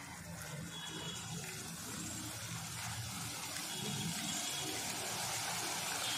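Drops of gram-flour (besan) batter sizzling as they fry in hot groundnut oil for boondi. The sizzle grows steadily louder as more drops fall into the oil.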